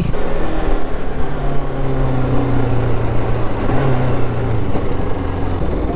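Motorcycle engine running at a steady pitch while riding, over an even rush of noise; the engine note eases off after about four and a half seconds.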